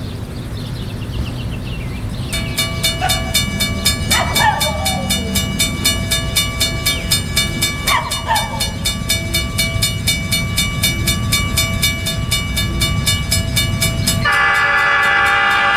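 Wigwag crossing signal's bell ringing in even, repeated strokes, starting about two seconds in over a low rumble. Near the end the lead EMD E8 locomotive's air horn sounds loudly and steadily, drowning out the bell.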